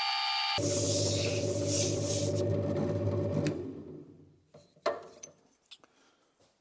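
Electric drill spinning abrasive paper inside a steel door-hinge bore to open it up to size. The high whine turns abruptly to a lower, rougher grinding sound about half a second in, which dies away about four seconds in. A few light metallic clicks follow.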